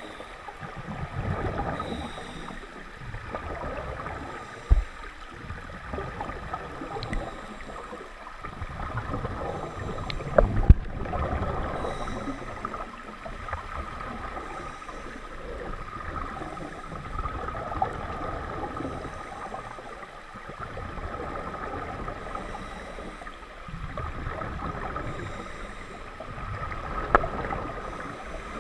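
Underwater audio on a scuba dive: rushing and bubbling from the diver's regulator breathing, swelling and fading every few seconds, with two sharp knocks about 5 and 11 seconds in.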